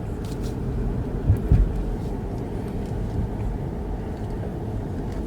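Car driving, heard from inside the cabin: a steady low rumble of engine and road noise, with a couple of low thumps about a second and a half in.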